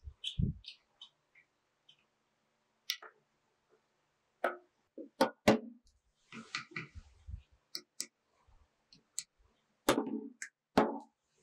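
Irregular metal-on-metal clinks and knocks of hand tools working on an old 4-inch multi-purpose bench vise as it is taken apart, with a few harder strikes that ring briefly.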